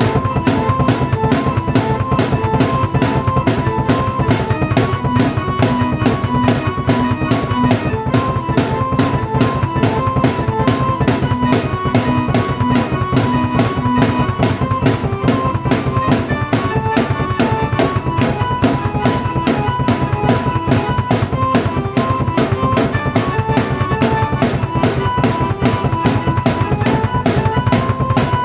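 Drum kit and keyboard played together: a fast, steady drum beat with bass drum, with a keyboard melody and chords over it.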